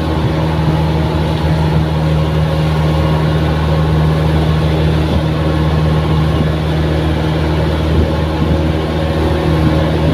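A bangka outrigger boat's engine running steadily while under way, a loud, even low drone, with water hissing and splashing along the hull and outrigger float.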